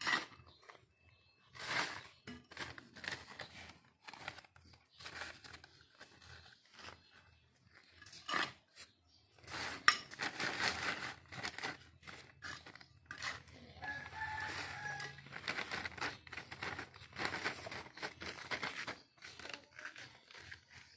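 Soil scooped and scraped with a small hand trowel and poured into a black plastic polybag, with the bag rustling and crinkling in irregular bursts. A rooster crows once in the background about two-thirds of the way through.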